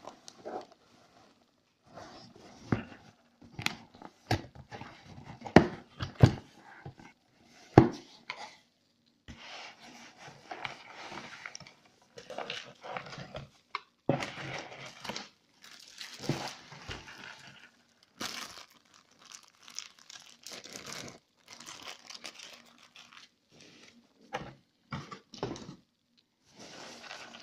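Cardboard box and packaging being handled and unpacked: sharp knocks and taps of the box in the first several seconds, then long stretches of crinkling and rustling packaging with short pauses between them.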